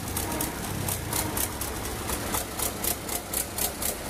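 1970 Belarus tractor's diesel engine running at low speed as the tractor drives slowly, with a regular clatter of about five beats a second.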